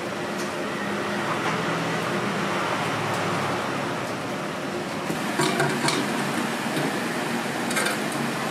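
Steady background noise of a street food stall, with a few short clicks of a metal utensil against a plastic jug of waffle batter about five and a half seconds in and again near the end.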